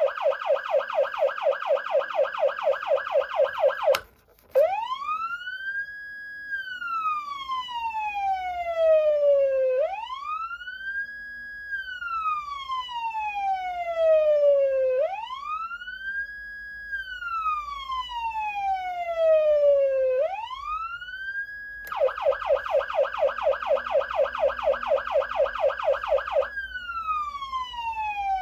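Federal Signal Unitrol electronic siren amplifier sounding through its speaker. It starts on a fast warbling yelp of about four sweeps a second, cuts out briefly, then switches to a slow wail that rises, holds at the top and falls about every five seconds. Near the end it goes back to the fast yelp, then drops into a slow falling wail.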